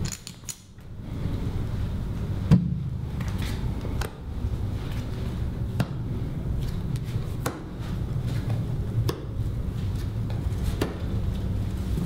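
Low steady drone with a sharp percussive knock repeating evenly, about every second and a half, like the slow beat of a suspense score.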